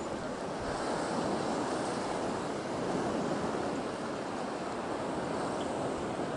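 Steady rushing of sea surf and wind along a rocky shore.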